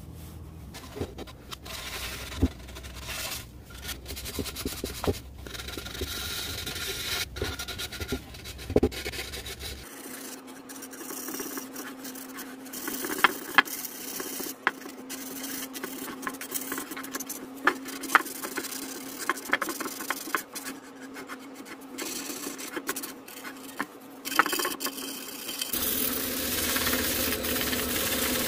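Hand tool scraping and rubbing on juniper wood, with repeated sharp scratches. Near the end a flexible-shaft rotary tool with a sanding disc starts running.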